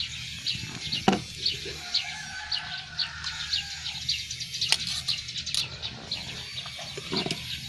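Small birds chirping in short, high, falling notes a few times a second, with a longer held call in the middle, and a couple of sharp knocks.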